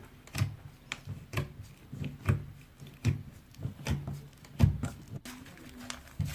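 Irregular soft taps and knocks, roughly one or two a second, the loudest a little past the middle: handling noise.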